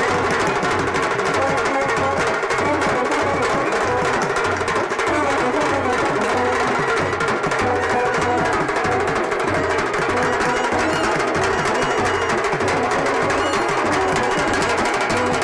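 Loud, continuous procession music of an Indian wedding baraat, with drumming over a steady repeating low drum beat.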